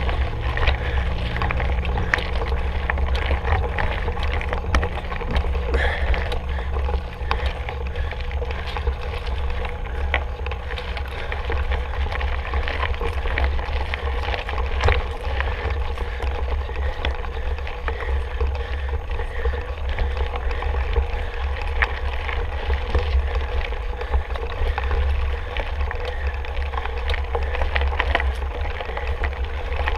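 Mountain bike being ridden on a rough trail: a steady low rumble of wind on the microphone, with the noise of the tyres on the ground and frequent small clicks and rattles from the bike.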